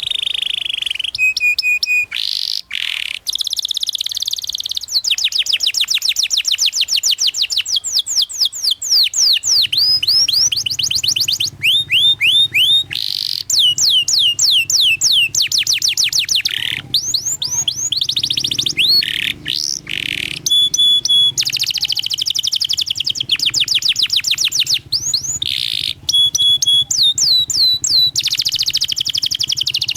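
Domestic canary singing a long, continuous song: fast rolls of rapidly repeated, falling chirps, phrase after phrase with only brief breaks between them.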